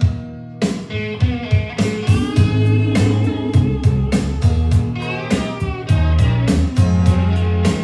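Blues-rock music with guitar, a steady drum beat and strong, deep bass, played back through ELAC Debut 3.0 DB63 bookshelf speakers with a REL T9x subwoofer filling in the low end.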